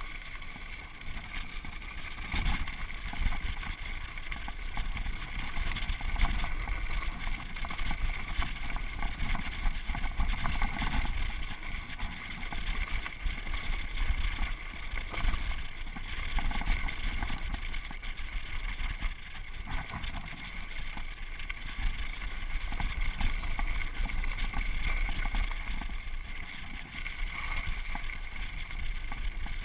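Mountain bike running fast downhill on a dirt trail: wind buffeting the microphone with a steady low rumble, over the tyres rolling on loose dirt and the bike's frame and parts rattling with many small irregular clicks.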